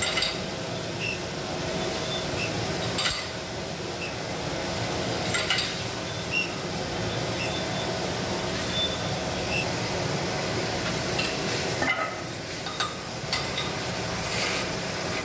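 Metalworking machine running steadily, with scattered metallic clinks and taps every second or few.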